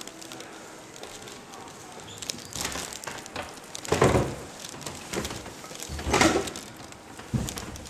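Footsteps going down steep wooden stairs: a thud on the wooden treads about every second, the loudest about four and six seconds in.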